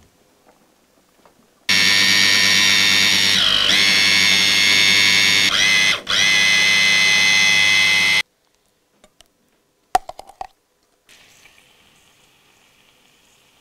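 Electric blender running, likely pureeing the peas and potatoes. It starts suddenly and runs for about six seconds, its pitch sagging twice under load before it cuts off abruptly. A few clicks follow, then a faint steady hiss.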